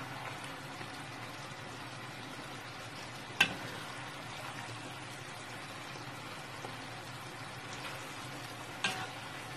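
Chicken curry sauce bubbling steadily in a wok while it is served out, with a sharp clink about a third of the way in and another near the end as the serving spoon strikes the dish.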